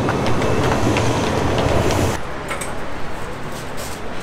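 Busy city ambience: a loud, steady low rumble of traffic or trains with scattered footstep-like clicks. About two seconds in it cuts off abruptly to a quieter shop ambience with light clicks and knocks.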